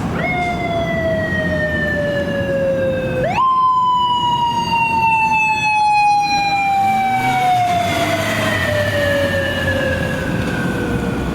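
Japanese police motorcycle siren wailing: the pitch jumps up quickly and then slides slowly down, twice, with the second rise about three seconds in. It is sounded to stop a car that passed through a crosswalk without yielding to a pedestrian.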